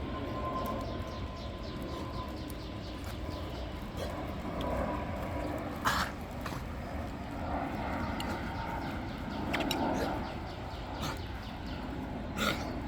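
A dog coughing, in several louder fits.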